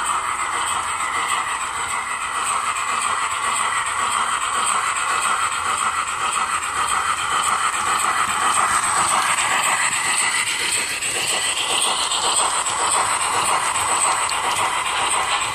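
H0-scale model steam train with coaches running on the layout's track: a steady rattle of small wheels on the rails, with a motor whine that rises in pitch in the second half.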